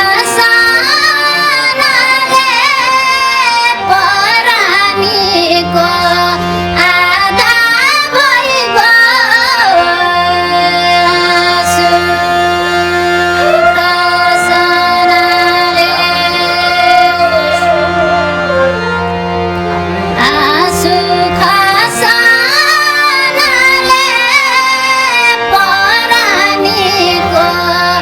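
Live Nepali song: a high, wavering, ornamented melody sung without words over sustained instrumental chords. About ten seconds in, the melody gives way to long held chords, and it returns about twenty seconds in.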